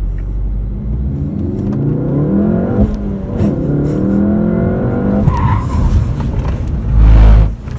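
Volkswagen Golf R's turbocharged four-cylinder engine heard from inside the cabin, its pitch rising and falling as the driver works the throttle through quick steering changes, with a brief tyre squeal. Near the end comes a short, very loud low rumble.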